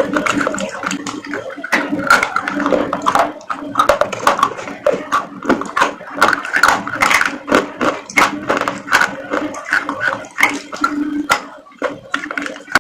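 Close-up chewing of crunchy food, with rapid, irregular crisp crunches several times a second over a faint steady hum.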